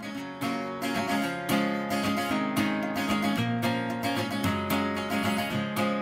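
Intro music led by a strummed acoustic guitar, with chords struck at a steady pace.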